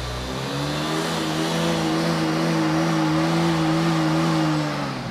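Piaggio Medley 125 scooter's single-cylinder engine revved hard on its centre stand with the rear wheel spinning free: the revs hold high and steady, then fall away as the throttle closes near the end.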